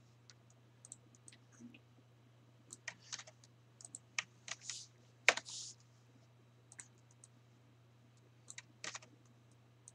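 Irregular typing on a computer keyboard with mouse clicks, in small scattered groups of keystrokes with pauses between. A faint steady low hum runs underneath.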